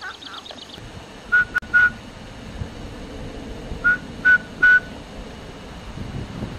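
Dog-training whistle blown in two sets of three short, even pips at one steady pitch, a recall signal that brings the springer spaniel running in.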